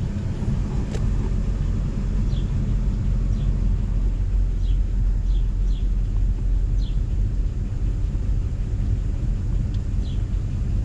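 6.0-litre Vortec V8 of a GMC Yukon Denali idling steadily, just started after an EGR valve replacement, with the AC compressor and fans running. A few faint, short high chirps come and go over the idle.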